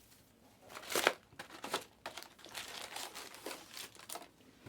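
Crinkling and rustling of handled plastic packaging: a string of irregular crackles, the loudest about a second in.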